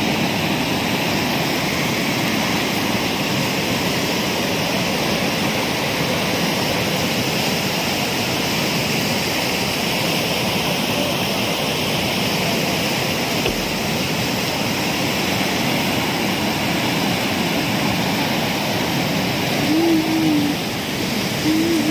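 A river rushing with a steady roar of water. Near the end there are two short pitched sounds.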